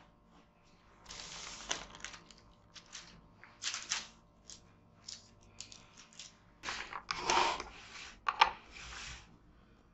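Parchment paper rustling and sliding across a wooden worktop, then clear plastic cling film pulled off its roll, loudly crinkling, with sharp crackles as it is torn off on the box's cutter edge near the end.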